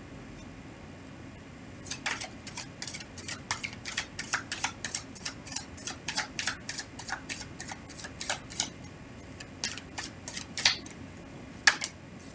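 A tarot deck being shuffled by hand: a quick run of crisp card slaps and flicks, about three or four a second. It starts about two seconds in, stops near the end, and two last slaps follow.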